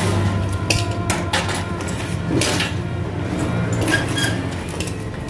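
Vespa chopper scooter engine running steadily at idle, with several sharp metallic clinks and knocks over it.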